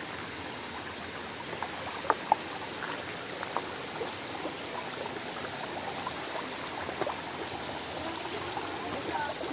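Shallow mountain stream running over rocks and boulders, a steady rush of water. Two short sharp clicks come about two seconds in.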